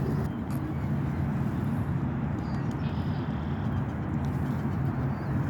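Steady low outdoor rumble, the kind that distant traffic or wind on the microphone makes, with a faint bird chirp or two high above it.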